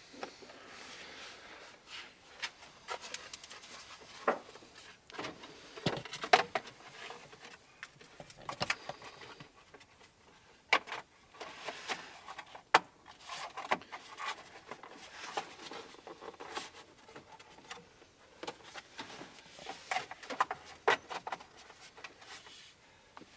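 Plastic steering column trim covers being handled and pressed into place: scattered clicks and taps of hard plastic, with rubbing and shuffling between them.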